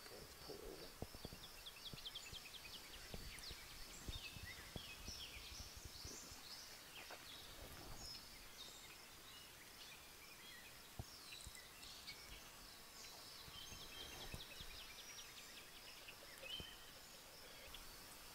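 Faint woodland birdsong: several small birds chirping and trilling in short high phrases, over a faint steady high-pitched tone, with scattered faint clicks.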